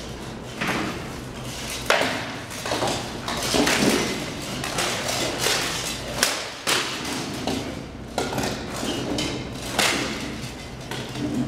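Rattan weapons striking shields and armour in SCA armoured sparring: an irregular run of sharp knocks and thuds with metallic clanks, echoing in a large hall.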